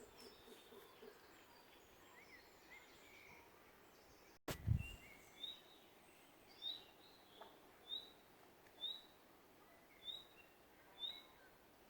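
A bird repeating a short, high chirp about once a second, faint against the forest background. A short, low thump comes just before the chirps begin.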